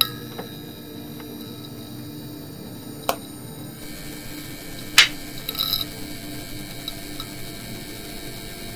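Steady mechanical hum and whir, broken by a few sharp clicks, the loudest about five seconds in.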